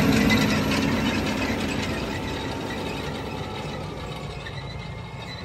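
Landini 8-310 tractor working a Landstal BTH 600 disc harrow: the engine running under load with a rattling clatter from the harrow, fading steadily as the rig drives away.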